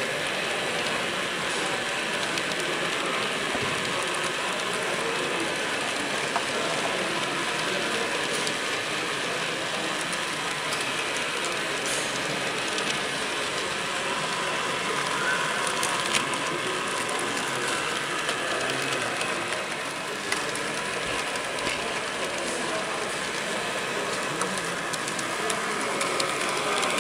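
Rivarossi model Southern Pacific cab-forward steam locomotive running along the track: a steady whir of its motor and gears, with scattered faint clicks.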